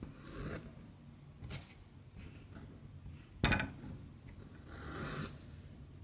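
Hand and stitching thread rubbing on cross-stitch fabric stretched in a frame: a few short rasping rubs, with one sharper, louder scrape about three and a half seconds in.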